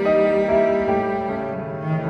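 Slow background music for bowed strings, led by a cello, with held notes that change every half second or so.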